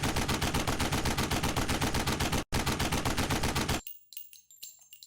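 Rapid automatic gunfire, about a dozen shots a second, in two long bursts split by a brief break about two and a half seconds in. It stops abruptly near the four-second mark, leaving a few faint clicks.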